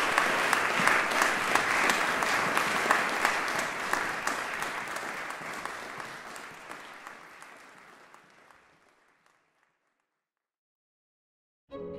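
Audience applause, full at first with sharp individual claps, then fading out gradually to silence about nine seconds in. String music starts abruptly right at the end.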